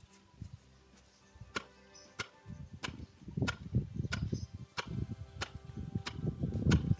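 Wooden pestle pounding pearl millet grain in a wooden mortar: a steady rhythm of knocks about one and a half a second, starting about a second and a half in and growing louder, with background music underneath.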